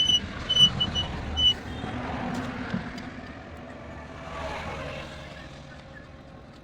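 A run of short, high-pitched beeps in the first second and a half, then road-vehicle noise swelling and fading as traffic passes.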